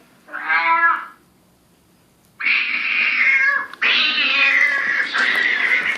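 Recorded cat sounds played from a cat sound-maker app: one short meow, then after a pause about three and a half seconds of harsh caterwauling.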